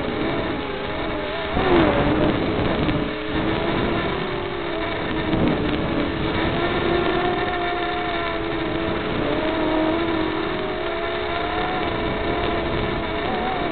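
Brushed micro-quadcopter motors (Hubsan X4 107C) whining in flight, the pitch wavering up and down with throttle changes.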